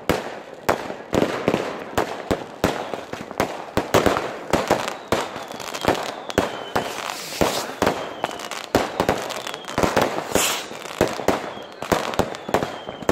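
Many fireworks exploding close overhead: a dense, irregular stream of sharp bangs and crackles with no pause, and several faint falling whistles among them.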